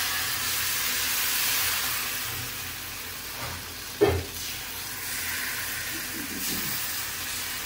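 Thin neer dosa rice batter sizzling and hissing as it is poured onto a hot flat pan. The hiss is loudest at first and then eases. A single sharp knock comes about four seconds in.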